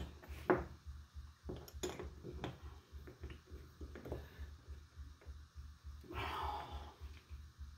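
Light metallic clicks and taps of a wrench and small steel parts on a vintage Morse MV throttle-control gearbox as a tight fastener is worked loose. A brief rasping noise comes about six seconds in.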